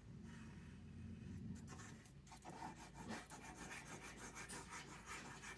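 A glue stick rubbed back and forth over paper: faint, rapid scratchy strokes that come thick and fast from about halfway on.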